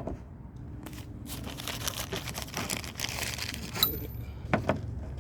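Crinkling and rustling as a lawnmower air filter is handled, followed by a few sharp clicks near the end.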